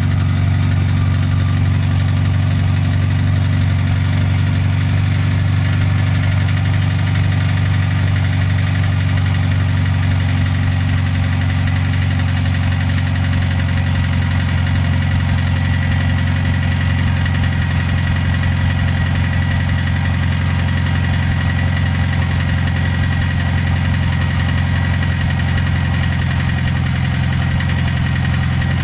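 High-mileage (250,000 km) boxer engine idling steadily with a knock in it.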